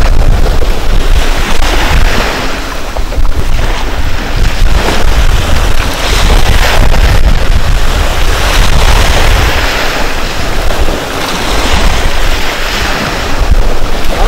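Wind buffeting the microphone over the wash of choppy sea waves, the noise swelling and easing every few seconds.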